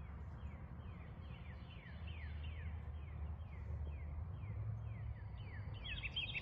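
A bird calling over and over in short, high notes that slide downward, two or three a second, coming faster near the end, over a steady low outdoor rumble.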